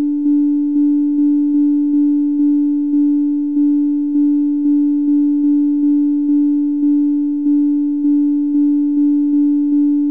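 Plain sine tones played back from a 1010 blackbox sampler: one steady pitch struck again at uneven gaps, about two or three notes a second, each fading before the next. A small click marks the start of each note, the kind of pop the uploader blames on the blackbox not smoothing its zero crossings.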